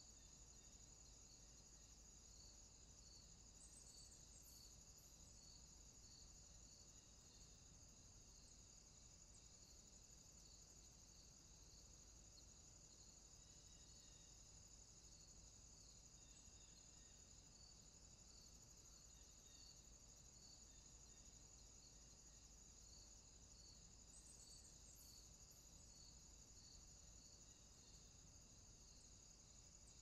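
Faint, steady high-pitched trilling of crickets, with a softer chirp pulsing about once a second beneath it.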